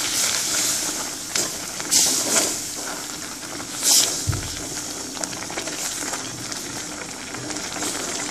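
Egg curry gravy bubbling and hissing as it cooks in a pan. There are a few short, sharp sounds about one and a half, two and four seconds in, and a brief low thump just after four seconds.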